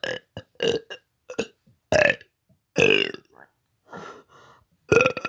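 A man burping on purpose, again and again: a quick string of short burps in the first second and a half, then single louder burps about every second, with a couple of fainter ones shortly before the last.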